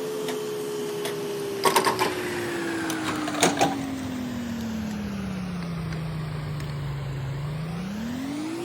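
CNC lathe running while it cuts a thread, its motor whine falling slowly in pitch as the spindle slows, then rising again quickly near the end. A few sharp clicks come about two seconds and three and a half seconds in.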